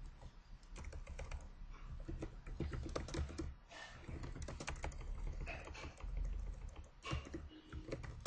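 Computer keyboard being typed on: irregular runs of key clicks with short pauses between them.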